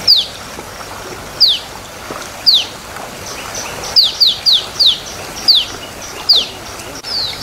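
A bird calling with short, sharp, downward-sliding whistles, about ten in all, irregularly spaced with a quick run of four in the middle, over a steady background hiss.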